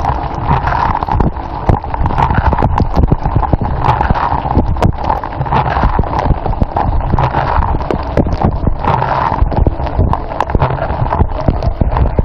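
Dishwasher running, heard from inside the wash chamber: water jets splattering against the dishes and the phone in fast, irregular knocks over the steady hum of the wash pump.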